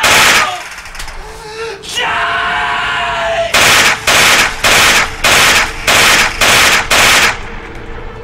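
A loud gunshot, then a long scream that falls in pitch at the end, then a string of seven gunshots evenly spaced about two a second.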